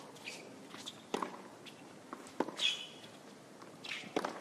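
Tennis rally on a hard court: sharp ball-on-racket strikes about every second, with a couple of short rubber shoe squeaks on the court surface between them.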